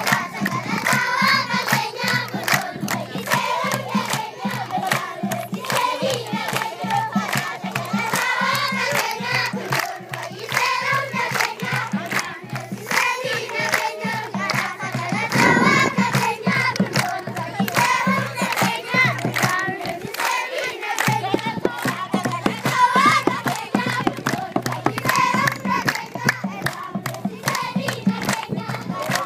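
A large group of children singing together, clapping their hands along in rhythm.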